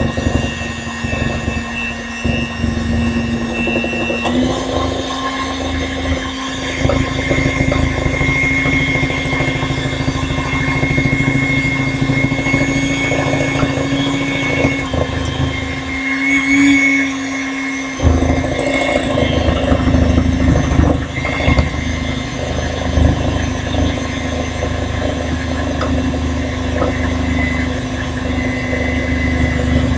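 Electric hand mixer running steadily, its beaters churning through thick cake batter in a glass bowl. The motor's pitch steps up a little about four seconds in.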